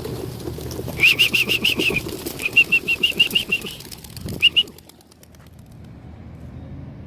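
A flock of young racing pigeons bursting out of a release box and taking off in a clatter of wing flaps, with three runs of rapid, high-pitched squeaks in the first few seconds. The flapping fades out about five seconds in, leaving a low steady hum.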